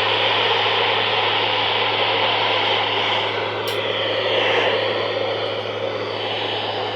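Steady radio static from a receiver: an even hiss with a low hum underneath.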